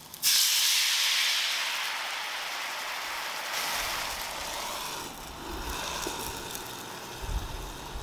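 Sauce hitting a hot non-stick frying pan of meat-wrapped rice balls: a sudden loud sizzle that slowly dies down to a steady bubbling hiss. A few low knocks come near the end.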